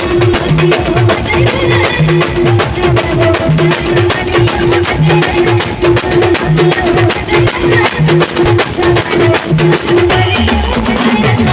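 Adivasi timli band music: an instrumental passage led by a fast, driving percussion rhythm of woodblock-like strokes and drums, with a repeating low hit about every one and a half seconds.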